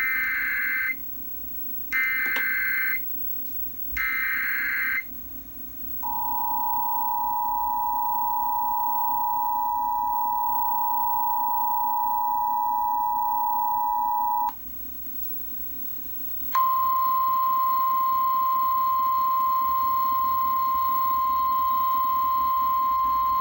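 Emergency Alert System alert tones heralding a flash flood warning: three one-second bursts of SAME header data, then the two-tone attention signal held for about eight seconds, and after a brief pause a single steady alert tone.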